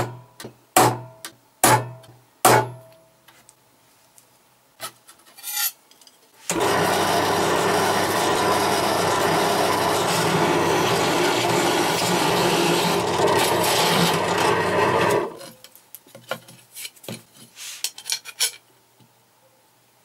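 A center punch struck four times on aluminium plate, sharp metallic taps under a second apart. After a pause, an electric drill bores into the aluminium plate with a steady noise for about nine seconds and stops suddenly, followed by scattered light clicks and taps.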